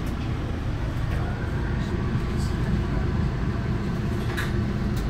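MBTA commuter rail coach running along the track, heard from inside the passenger car as a steady low rumble, with a sharp click a little over four seconds in.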